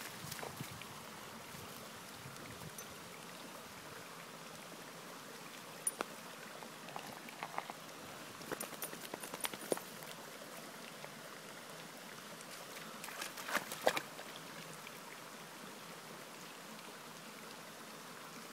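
Shallow rocky stream trickling steadily, with a handful of short, sharper sounds scattered through: one about six seconds in, a cluster around the middle, another near two-thirds of the way.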